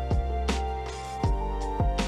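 Lo-fi hip-hop background music: mellow keys over a steady kick-drum and hi-hat beat.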